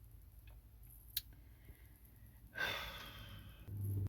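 A woman's breathy sigh lasting about a second, starting just past halfway, followed by a short low hum. A single sharp click comes about a second in.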